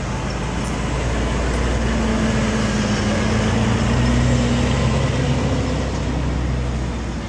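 A heavy vehicle engine running close by with a low hum. It grows louder to a peak about four seconds in, then fades a little, as a large motor vehicle or road machine passes.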